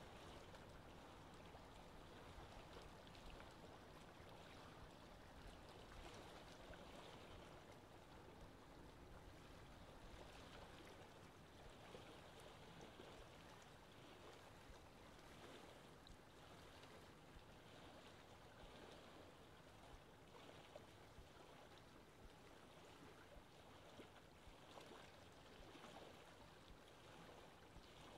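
Faint wash of choppy sea water: a steady hiss with small irregular surges, over a low, fluttering rumble.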